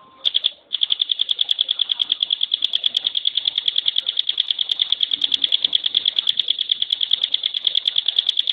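Ciblek pinus (a prinia) singing its rapid rattling 'tembakan' call: a short burst, then a fast, unbroken run of high notes at about ten a second.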